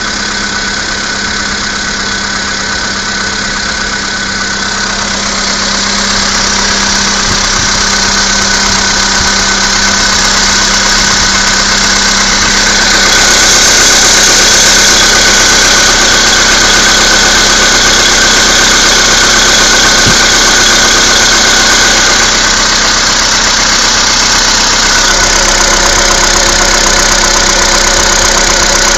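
Skoda Fabia II's 1.6 CFNA four-cylinder petrol engine idling after a cold start in deep frost, with a knock from inside the engine that the owner cannot explain. It grows louder about six seconds in and again near the middle.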